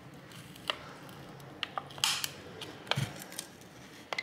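Thin metal pry tool clicking and scraping against the frame of a Samsung Galaxy S10 5G as its glued glass back cover, softened on a heat mat, is pried off: scattered sharp ticks and a short scrape about two seconds in.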